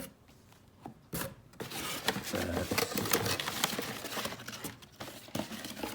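Packaging being handled during an unboxing: rustling with many small clicks and knocks, busiest from about a second in until near the end.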